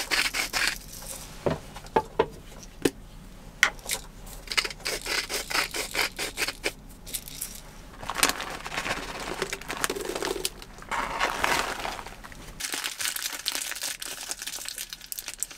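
Cooking handling sounds: a seasoning shaker rattled over sliced pork right at the start, a few sharp taps, then the crinkling of a plastic bag of shimeji mushrooms being opened, and near the end parchment paper rustling as it is folded into a parcel.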